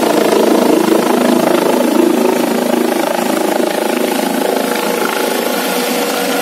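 Medical rescue helicopter flying overhead just after takeoff, its rotor and engine noise steady and slowly fading as it climbs away.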